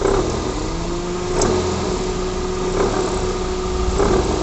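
Toyota Corolla engine running with a steady hum and light knocks about every 1.3 seconds. The mechanic takes the noise for the poly-V belt tensioner's damper vibrating, most likely under the load of the air-conditioning compressor.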